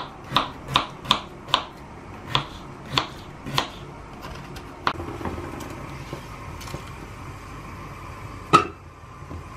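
A kitchen knife chopping through a raw potato onto a wooden cutting board, about eight sharp knocks in the first few seconds. A steadier, quieter sound follows, with a single loud knock near the end.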